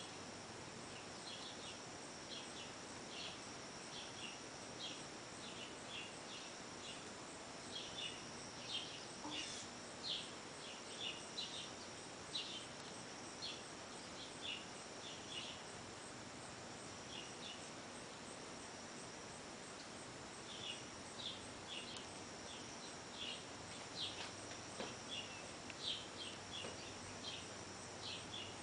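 Short high chirps repeating irregularly, a couple a second, with a lull of a few seconds midway, over a faint steady high whine.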